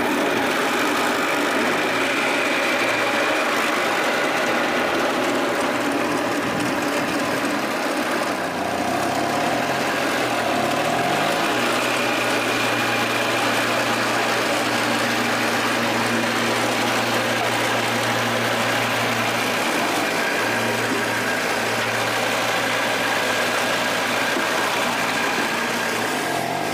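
Small engine driving a cassava grating machine, running steadily at speed just after being started. Its pitch wavers briefly about nine seconds in, then settles again.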